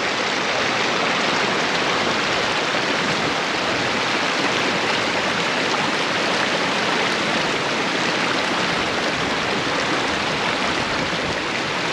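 Shallow mountain stream rushing over rocks: a steady, loud water noise.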